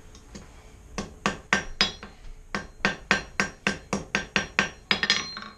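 Blacksmith's hammer striking a hot 1/4 inch square steel bar on the anvil, about four ringing blows a second starting about a second in, curling a pigtail scroll on the end of a J hook.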